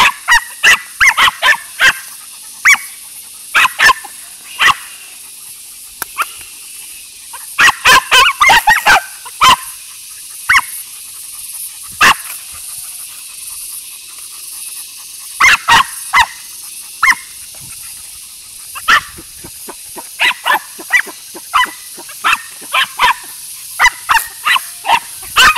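A dog barking in quick runs of short, sharp barks, with pauses of a few seconds between the runs, at a small animal it has cornered.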